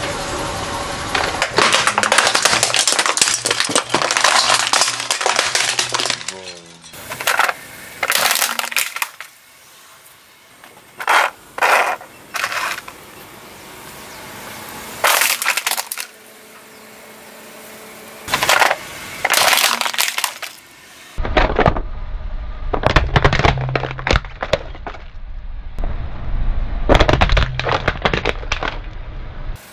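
Hard plastic toys cracking and breaking under a car tyre: a long stretch of crackling and snapping at first, then several separate crunches of breaking plastic.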